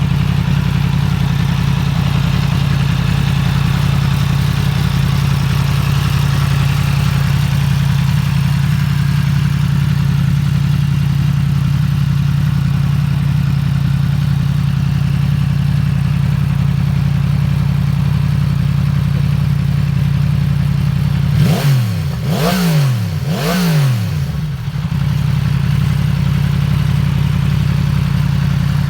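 Yamaha MT-10 SP's crossplane inline-four idling steadily through an Akrapovič aftermarket silencer, with three quick blips of the throttle about two-thirds of the way through before it settles back to idle.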